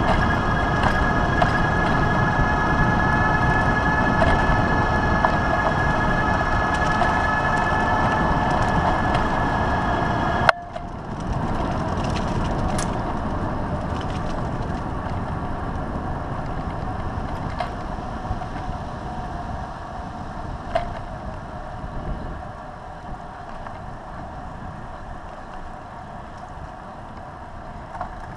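Pedego City Commuter electric bike on the move: the hub motor gives a steady whine over rolling rumble, and the whine cuts off with a click about ten seconds in, leaving a quieter rumble that slowly fades.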